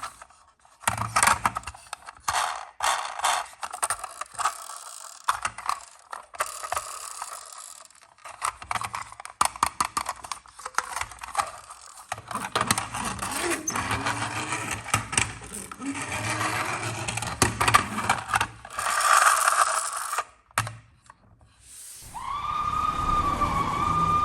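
Small toy vehicles clicking, rattling and scraping as they are handled and rolled, with quick ratchet-like runs of clicks. Near the end a toy's electronic siren starts up.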